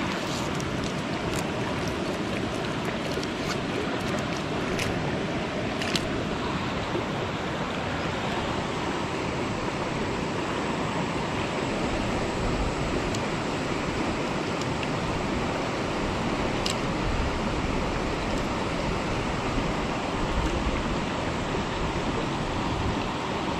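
Steady rushing of a fast-flowing river current, with a few small clicks in the first six seconds and one more later.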